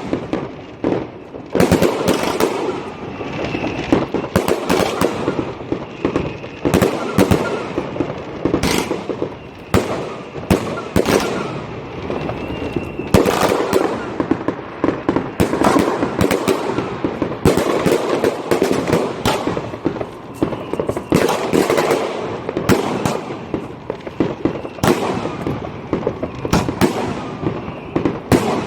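Fireworks going off continuously: many sharp bangs at irregular intervals, some in quick clusters, over a constant crackle of firecrackers, with the bangs echoing.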